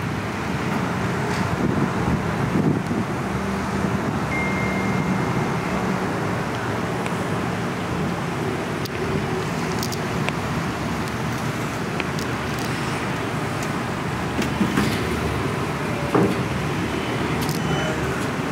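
Steady road noise of a car driving, with a few faint ticks.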